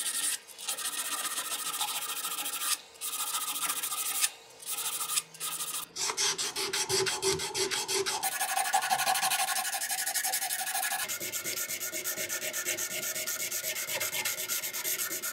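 Sandpaper rubbed by hand in quick back-and-forth strokes over a flat steel surface, a dry scraping rasp that stops and restarts several times. It changes character a few times as the paper is swapped for finer grits in the hand-polishing sequence.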